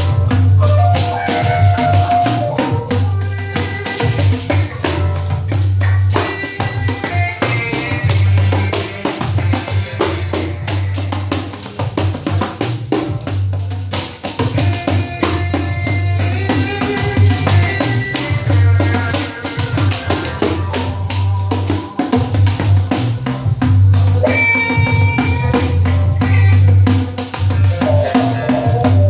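A pandeiro with an old 12-inch nylon head played in a steady, dense rhythm along with a recorded song, its jingles ringing on every stroke over the song's bass line and melody.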